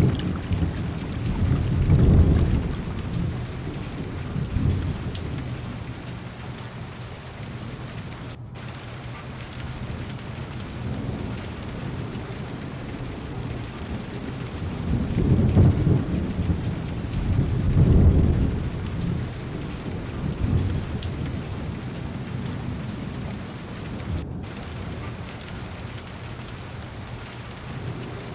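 Heavy rain pattering steadily on a car's window and body, with rumbles of thunder swelling near the start and again about halfway through.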